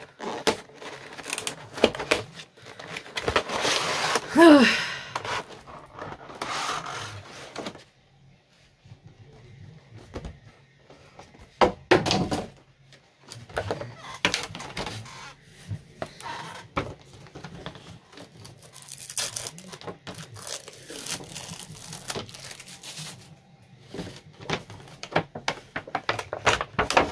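Cardboard box and clear plastic wrapping of a new cat-shaped mirror being opened by hand: irregular crinkling, tearing and rustling of plastic, with scattered knocks and scrapes of packaging and plastic.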